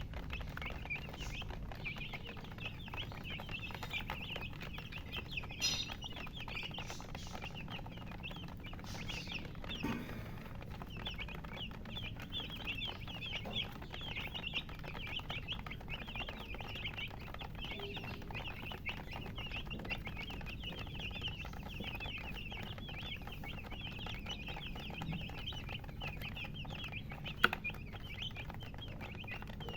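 A group of chicks peeping continuously in a dense stream of short, high, overlapping chirps. A single sharp click sounds near the end.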